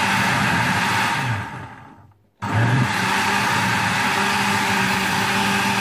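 Electric countertop blender running at full speed, blending fruit and water into juice. About a second in, its motor winds down and stops; after a short silence it starts again abruptly and runs steadily.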